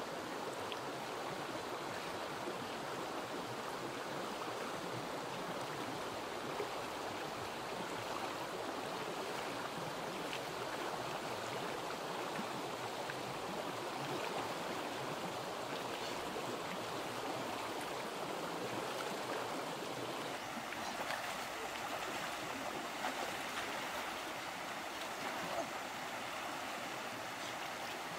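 Shallow stream rushing over rocks: a steady, even wash of water.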